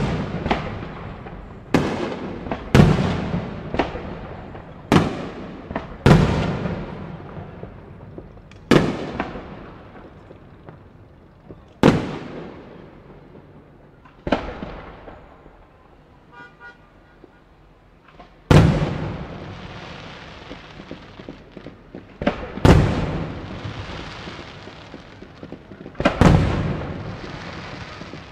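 Fireworks display: aerial shells bursting, about a dozen loud bangs each followed by a long echoing rumble, with a quieter lull in the middle. The later bursts trail off in a hissing crackle.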